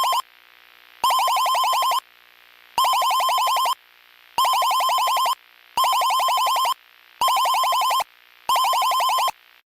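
Electronic alarm tone sounding in about seven one-second bursts with short gaps, each burst a rapidly pulsing, buzzy beep; it cuts off suddenly near the end.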